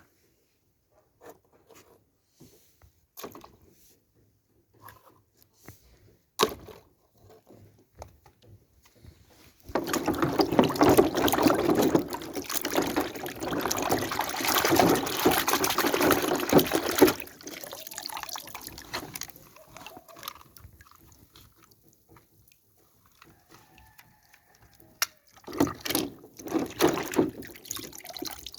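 Liquid pouring and splashing for about seven seconds in the middle, with a shorter burst near the end. Scattered small clicks and taps come between them.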